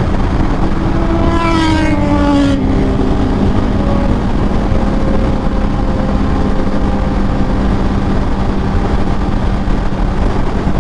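Sport motorcycle being ridden at road speed: loud wind rush over a steady engine tone. About a second in, an engine note sinks in pitch for a second or so, then the engine settles back to a steady drone.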